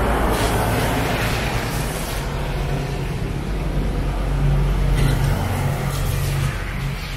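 Street traffic: a motor vehicle's engine hums close by over the hiss of passing cars, easing off about six and a half seconds in.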